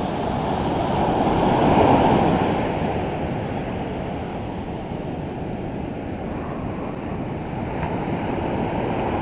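Ocean surf breaking and washing up a sandy beach, a steady rush that swells as a wave breaks about two seconds in.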